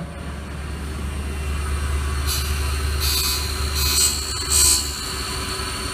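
CNC grinding machine running with a steady low hum; about two seconds in, four short high-pitched whirring bursts come as its axis is jogged downward.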